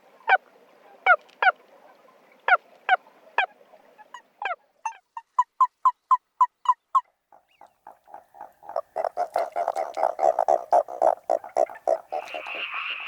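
Calls of Japanese toads played one clip after another: first spaced, downward-sliding croaks, then a run of short, evenly spaced notes about three a second, then a dense pulsing chorus. Near the end a higher, rapid trilling frog chorus takes over.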